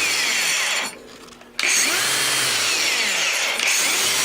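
Wire wheel on a power tool running at full speed and brushing steel. It cuts off suddenly about a second in and snaps back to full speed well under a second later, starting almost instantly, like a starter motor.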